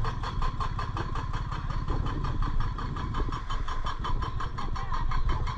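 Bajaj Dominar motorcycle's single-cylinder engine running at low revs with a steady, even pulse as the bike rolls slowly at walking pace.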